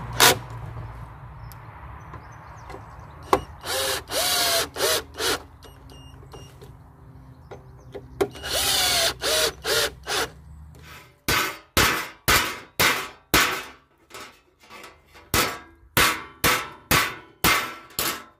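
Cordless drill-driver driving screws into wood in a few short bursts, its motor whine rising as each one spins up. About eleven seconds in, a ball-peen hammer starts striking steel on a metal plate: sharp blows about two a second, with a short pause midway.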